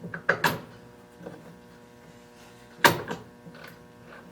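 Metal clicks and clanks of a machine collet being tightened on a graphite rod, a few small knocks and one loud clank about three seconds in, over a faint steady hum.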